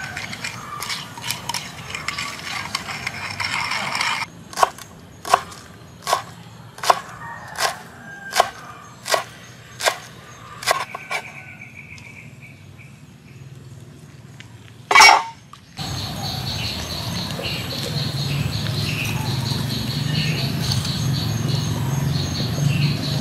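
Sharp knocks on wood in an even rhythm, about ten of them, roughly one every three-quarters of a second, from hand food preparation with wooden tools. One louder knock follows a few seconds later, then a steady low hum.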